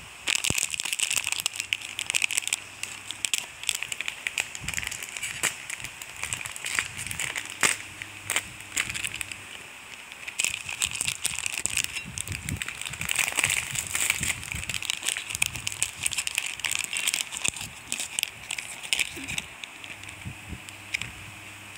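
Shiny plastic wrapper of a packaged sponge cake crinkling and crackling as it is handled and torn open by hand, a dense run of sharp crackles that thins out near the end.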